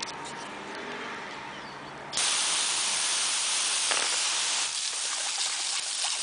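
Garden hose spray nozzle turned on about two seconds in, its jet hissing loudly and steadily.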